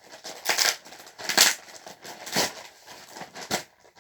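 A shipping package being opened by hand: four short, scratchy strokes of packaging, about a second apart.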